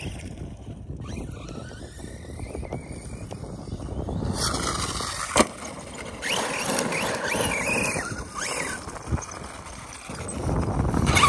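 Arrma Kraton 6S electric RC truck driving over loose gravel: the motor whine rises and falls as it revs, over the crunch of the tyres, with a single sharp knock about five seconds in.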